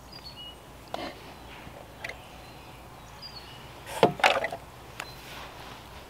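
Silicone spatula spreading thick lemon pie filling over blueberries in a foil pan liner. It makes soft scrapes and taps against the foil about once a second, with a louder cluster about four seconds in.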